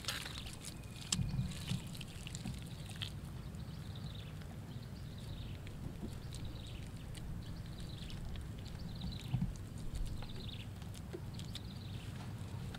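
Hands pressing and patting wet mud-and-straw plaster onto a clay stove: soft squelches and pats, the loudest a little over a second in and again about nine seconds in, over a low steady rumble. Short high falling chirps recur about once a second from about three seconds in.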